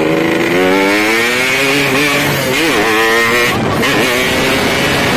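Yamaha RX-King two-stroke motorcycle engine running hard through its exhaust, its pitch rising steadily, then dipping and climbing again about two and a half seconds in.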